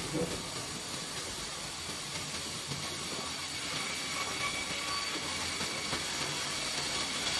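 Industrial bandsaw for foam rolls running: a steady hiss with a faint high whine, slowly growing a little louder.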